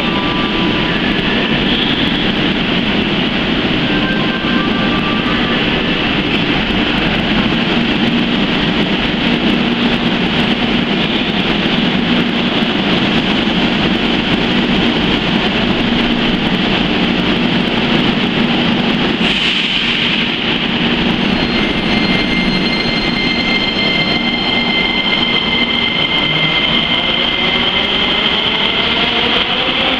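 Metro train standing at an underground platform with a steady hum, then pulling out about two-thirds of the way through: its traction motors' whine rises in pitch as it accelerates away into the tunnel.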